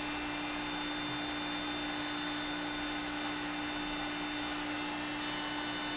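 Handheld heat gun running steadily, its fan motor humming under a whoosh of hot air, used to melt insulation onto a pond pump's power cord.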